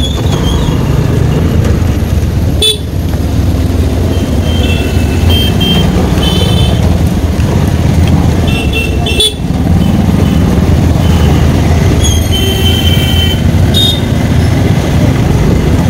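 Riding a motorcycle in town traffic: a steady low engine and road rumble, with vehicle horns beeping in several short bursts through the middle and one longer blast about three-quarters of the way through.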